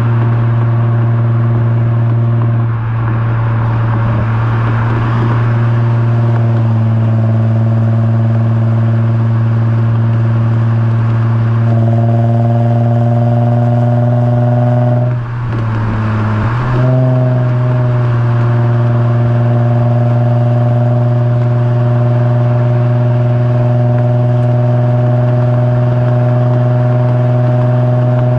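Lexus IS350's 3.5-litre V6 heard right at the tailpipe through an HKS Hi Power catback exhaust and Invidia midpipe, a loud steady exhaust drone. About halfway through the note briefly dips and breaks, then comes back at a slightly different pitch and holds steady again.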